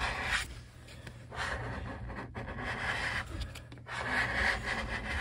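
Plastic wax scraper scraping across a ski's P-Tex base in a few strokes, shaving off the excess P-Tex from a freshly filled gouge.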